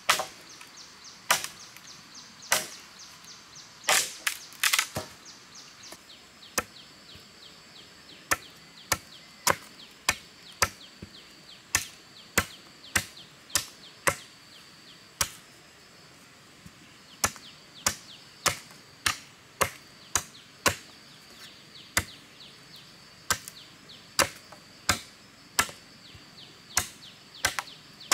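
Machete chopping into a bamboo pole: sharp cracking strokes, roughly one to two a second with a couple of short pauses, as the end of the pole is hacked and trimmed.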